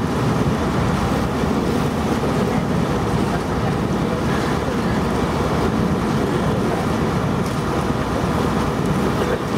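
A boat under way: steady engine noise mixed with the wash of water, and wind on the microphone.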